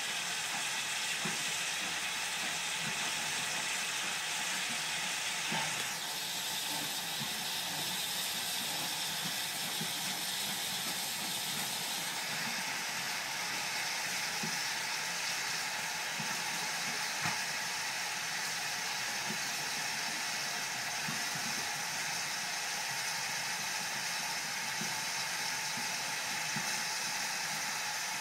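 Steady hiss of escaping steam from standing and slow-moving steam locomotives, its tone shifting about six seconds in and again about twelve seconds in, with a few faint knocks underneath.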